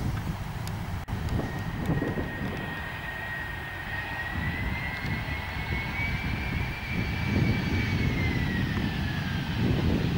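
Jet airliner landing: engine whine that rises slightly in pitch, holds, then falls away near the end, over a low engine rumble and gusts of wind on the microphone. A brief dropout about a second in.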